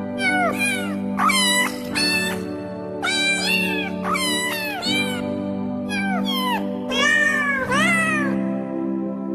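Cats meowing over and over, about two short meows a second, many falling in pitch, over background music with steady held chords.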